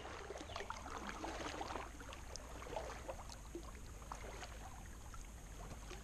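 Faint water sounds of a kayak paddle dipping, with small splashes and drips trickling off the blade, a little louder in the first couple of seconds.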